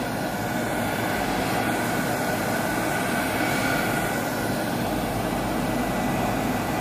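Small handheld craft heat gun running steadily, blowing hot air with a faint high whine, drying wet paint on wood.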